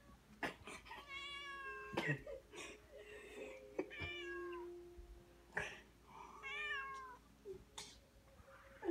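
Domestic cat meowing at a closed door, begging to be let outside: about three drawn-out meows, faint, with a few short light clicks between them.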